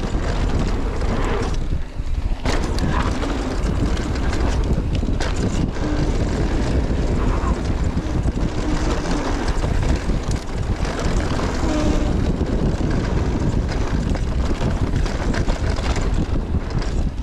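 Mountain bike descending a dirt trail: wind buffeting the microphone over tyre noise, with frequent small clicks and rattles from bumps, and a brief lull about two seconds in.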